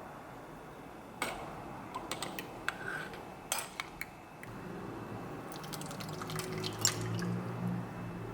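A few sharp clicks and knocks like household items being handled, then a low steady hum from about halfway through, with more light clicks over it.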